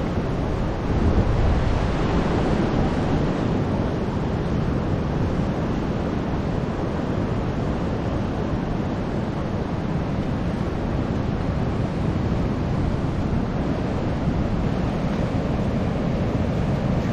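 Ocean surf washing in steadily, mixed with wind buffeting the microphone, with a slight swell about a second in.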